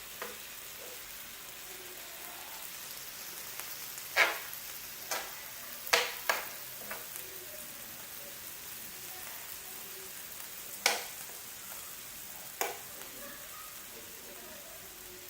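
Thin-sliced lamb sizzling on a tabletop grill, a steady hiss, with several sharp clicks of utensils against the grill or dishes as the meat is turned.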